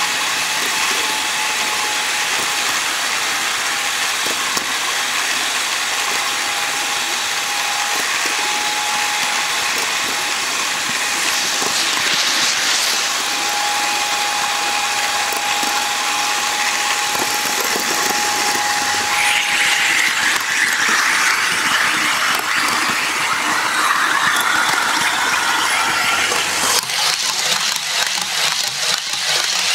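HO scale model train running close to the microphone: steady whirring and rattling of the motor and small metal wheels on the track, with a faint steady whine. Near the end comes a burst of rapid clicking.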